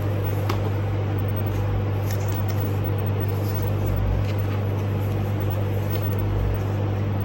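A steady low hum, with a few faint light clicks and taps from the phone box being handled.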